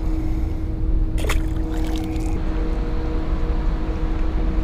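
A boat motor running with a steady hum over a low rumble, with a few brief clicks about a second in.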